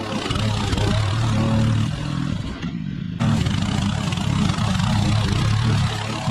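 Petrol rotary push mower running steadily under load while cutting thick, overgrown grass. The engine hum carries throughout, with a rushing noise of cut grass above it that drops out for about half a second near the middle.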